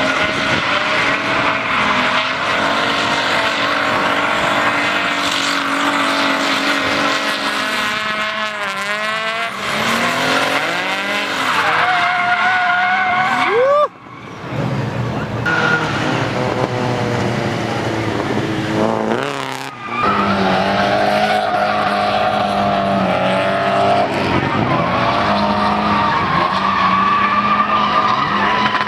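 Drift cars running in tandem, their engines revving up and down over and over while the tires squeal and skid. The sound drops out briefly twice.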